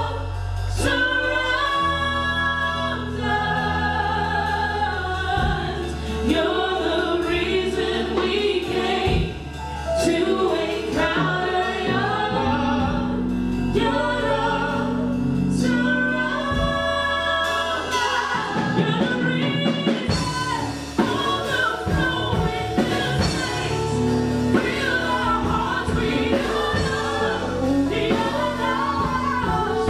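Gospel worship song: a woman and a man singing live into microphones over an instrumental backing with sustained low bass notes.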